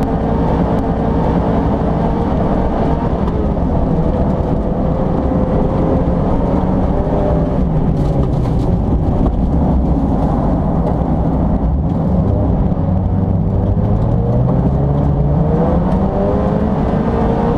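Mazda MX-5 race car's engine heard from inside the cabin during a fast lap on an ice track, its revs falling and climbing again several times through the corners.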